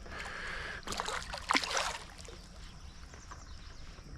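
Water splashing with sharp clicks for about two seconds, loudest about one and a half seconds in, then settling to the steady sound of flowing creek water.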